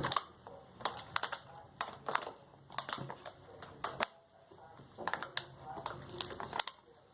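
Homemade slime being squeezed and kneaded by hand, giving irregular sharp clicks and crackles, a few each second.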